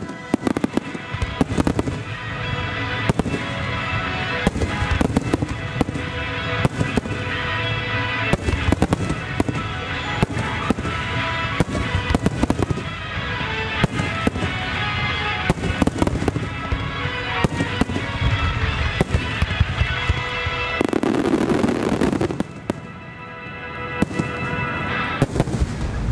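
Aerial firework shells bursting in rapid succession, a dense run of sharp cracks and booms, with music playing alongside. The bursts let up for a couple of seconds near the end, then resume.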